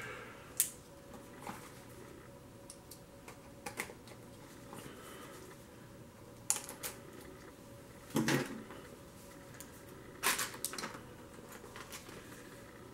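Small clicks, taps and scrapes as a folding pocketknife is opened and its blade slits the seal on a cardboard box, with the box being handled. A few louder clicks stand out, a couple of seconds apart.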